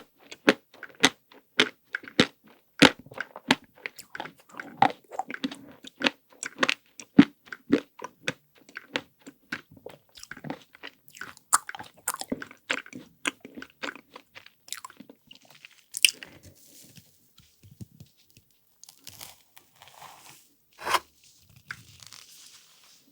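Close-miked crunching and chewing of chocolate-coated ice cream, the hard chocolate coating cracking in quick crisp clicks, about two or three a second. About two-thirds of the way through the crunching thins out into a few softer, wetter chewing sounds.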